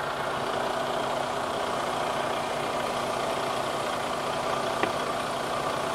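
Semi truck's diesel engine idling with a steady hum. There is one short click near the end, from the plastic washer-fluid cap being handled.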